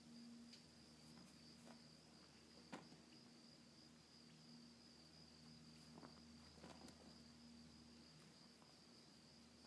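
Near silence: a faint, steady, high-pitched insect chirring, like crickets, with a few soft knocks, the sharpest about three seconds in.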